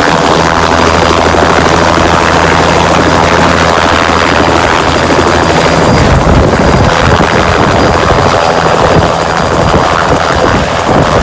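Bell 206 JetRanger helicopter hovering just above the ground and settling onto its skids, its two-bladed main rotor beating steadily. About halfway through the sound turns rougher and more uneven in the low end.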